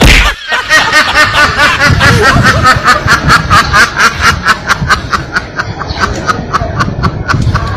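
A sharp whack at the start, then a domestic duck quacking in a rapid, steady run of about five harsh quacks a second that sounds like laughing.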